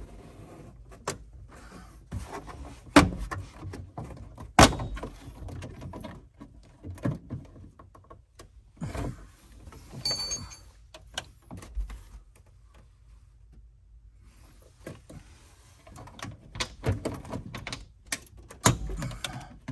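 Plastic interior trim panel being worked loose by hand: a series of sharp snaps, clicks and knocks as its retaining clips are pried, the two loudest snaps a few seconds in and another cluster of clicks near the end.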